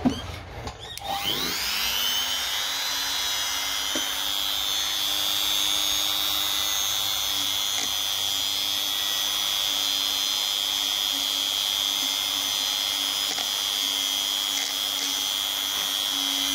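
Small rotary tool spinning a tiny wire brush inside the steel bearing-cap bore of a U-joint yoke, cleaning out rust and dirt. It spins up with a rising whine about a second in, runs at a steady high whine, then cuts off suddenly.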